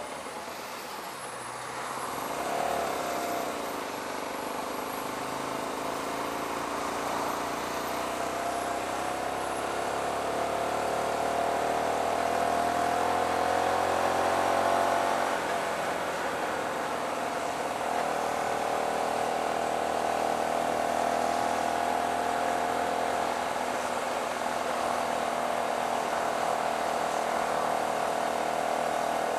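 Hyosung GT125R's small 125 cc V-twin engine running under way, its pitch climbing slowly as the bike pulls, dropping about halfway through and then holding steady. A brief rise in revs comes about two seconds in, with rushing wind and road noise underneath.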